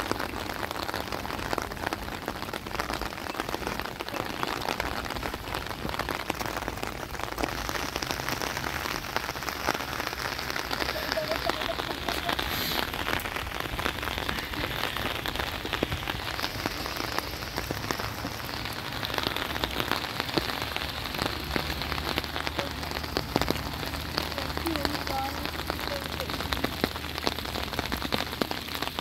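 Steady rain pattering: a dense, even patter of drops that keeps up without a break.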